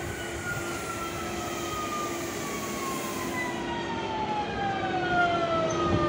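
Electric train arriving and slowing, its traction-motor whine falling steadily in pitch as it draws closer and louder, over a steady hum.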